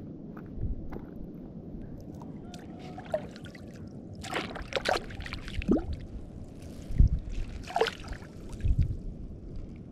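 Sea water sloshing and splashing as a fish caught in a gill net is handled and worked in the water, with a cluster of sharp splashes in the second half, the loudest about seven seconds in.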